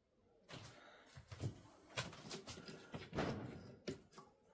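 Quiet, irregular clicks and knocks of metal being handled as a drill bit is fetched and fitted by hand into the drill chuck on the lathe's tailstock.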